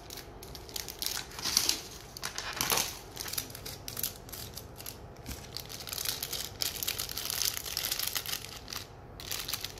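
Crinkling and rustling of a small plastic toy wrapper as it is handled, snipped open with scissors and pulled apart.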